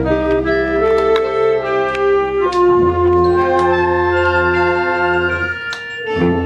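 A school concert band of flutes, clarinets, saxophones and tubas playing sustained held chords over a low tuba bass line. The chord breaks off briefly near the end, and a new one begins.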